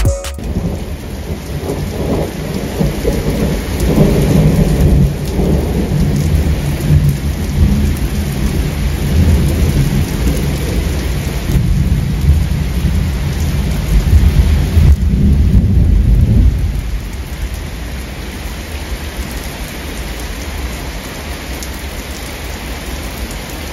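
Heavy rain pouring down. A deep rumble runs under it for the first two-thirds, then eases into a steadier downpour.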